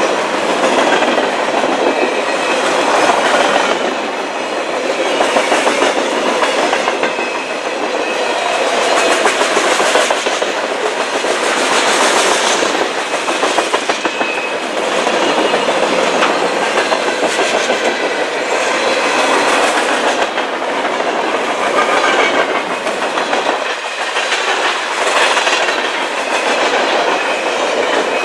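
Freight cars of a long mixed freight train rolling past close by: a steady rumble of steel wheels on the rails, with rhythmic clickety-clack over the rail joints.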